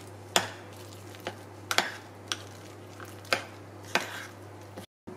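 A metal utensil stirring a thick tofu spread with chopped spring onion in a ceramic bowl, clicking against the side of the bowl several times at uneven intervals.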